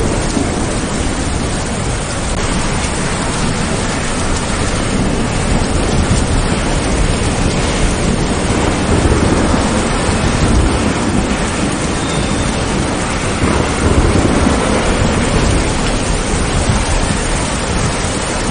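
Steady heavy rain falling through leafy trees, with low rumbles of thunder swelling twice, around the middle and again a few seconds later.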